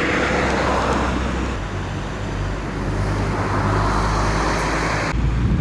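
An engine running steadily, with a low drone and a noisy hiss over it; the sound changes abruptly near the end.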